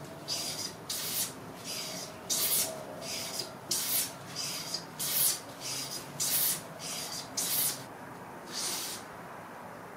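Dovetail infill low-angle smoothing plane taking thin, full-length shavings off a pale board: about a dozen quick hissing cutting strokes in a steady rhythm, roughly one every two-thirds of a second, stopping about nine seconds in.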